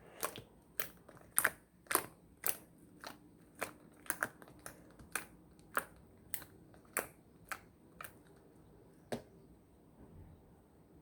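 Slime being worked by hand, giving a series of sharp little pops and clicks, about two a second, which stop about nine seconds in.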